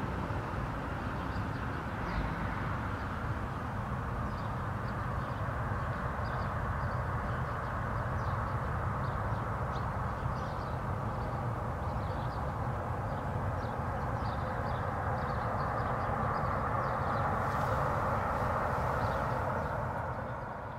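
Citation business jet taking off: steady jet engine noise through the takeoff roll, growing a little louder near the end as the jet lifts off and climbs toward the listener.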